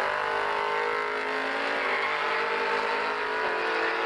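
Drag-race cars accelerating hard away from the start line and down the strip, engines at high revs with the pitch shifting as they pull away.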